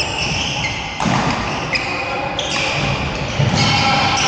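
Badminton rally in a large indoor hall: sharp racket hits on the shuttlecock, one near the start and one about a second in, over shoes squeaking and stepping on the court floor.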